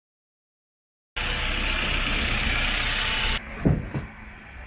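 Steady rushing roar of floodwater pouring through rapids, with a low rumble, starting about a second in and cutting off abruptly. Then quieter handling noise with two dull thumps of filled sandbags being dropped, the first the loudest.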